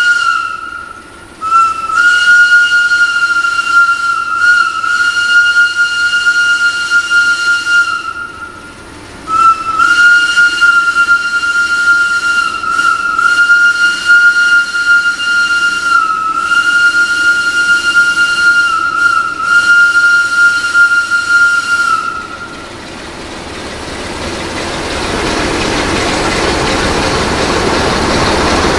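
A high, steady whistling tone from an approaching CFR class 60 (LDE 060-DA) Sulzer diesel freight locomotive, broken twice briefly and stopping a little over three quarters of the way through. After that the rumble of the locomotive and its wagons grows louder as the train draws close.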